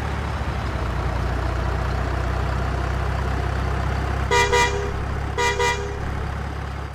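Truck engine idling steadily, with a horn giving two quick double toots about a second apart in the second half.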